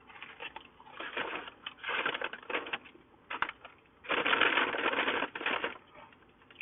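Paper fast-food packaging rustling and being crumpled, in several crackling bouts, the longest and loudest starting about four seconds in.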